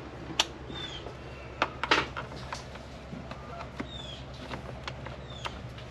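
Scattered light clicks and taps of hand work at a wall, with a few short faint squeaks, over a steady low hum.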